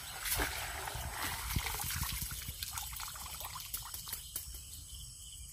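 Water splashing as a bamboo cage fish trap is pulled out of shallow water, then pouring and trickling out through its slats, thinning to scattered drips after about three seconds.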